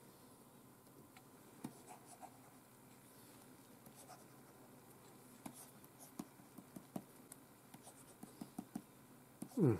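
Stylus nib tapping and scratching across the glass screen of a Wacom Cintiq Pro 13 pen display: light scattered clicks and strokes, coming more often in the second half. A short falling tone near the end is the loudest sound.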